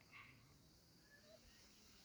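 Near silence outdoors: a faint steady high insect drone, with a few faint short chirps.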